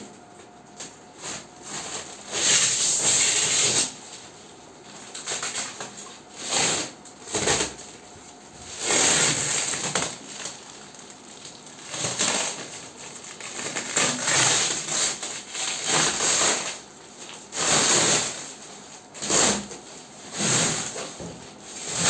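Clear plastic wrap on a cardboard box being pulled and peeled by hand, crinkling and rustling in about a dozen irregular bursts of a second or so each.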